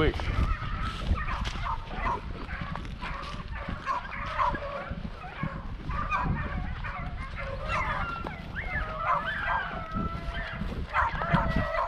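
A pack of beagles baying and yipping, many short calls from several dogs overlapping: rabbit dogs giving voice on the trail of a freshly jumped rabbit.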